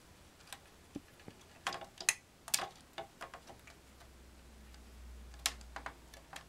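Small hard-plastic clicks and taps, irregularly spaced, as the beige plastic cartridge-slot cowling and speaker housing of a BBC Master computer are handled and pressed into place on its case.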